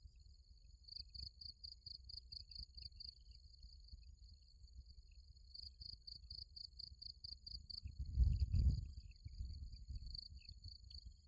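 Insects chirping in runs of quick high pulses, about four or five a second, over a steady high whine. A low rumble, like wind on the microphone, rises about eight seconds in.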